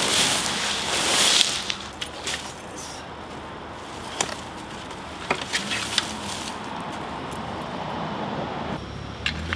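A plastic tarp and dry brush rustling as they are dragged and pulled by hand, loudest in the first second and a half, then quieter crackling with a few sharp snaps of twigs.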